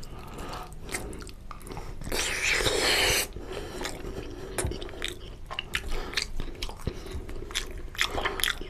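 Close-miked chewing and wet mouth clicks of a person eating mutton curry and rice, with a louder noisy sound lasting about a second, starting around two seconds in.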